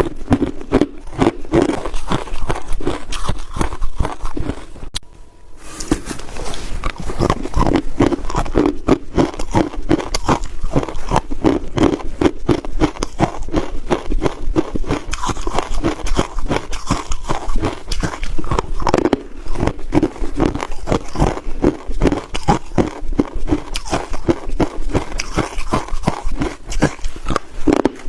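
Crushed ice being bitten and chewed close to the microphone: dense, rapid crunching, with a brief pause about five seconds in.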